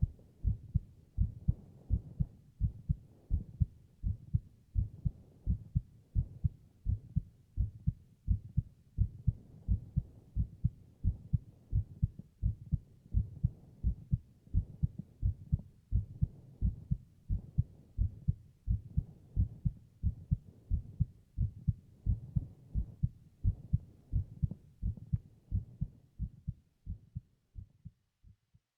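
A human heartbeat heard close up through a binaural microphone: steady, regular lub-dub double thumps, dying away near the end.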